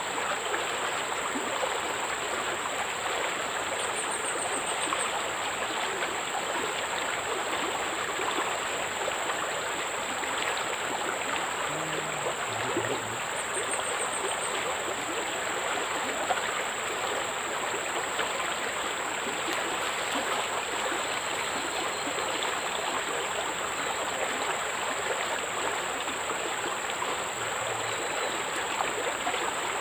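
Steady rush of flowing water, even and unchanging, with a continuous thin high-pitched tone above it.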